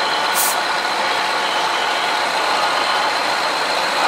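Kirovets K-700A articulated four-wheel-drive tractor's V8 diesel engine running steadily under load while it pulls a tractor-pulling sled.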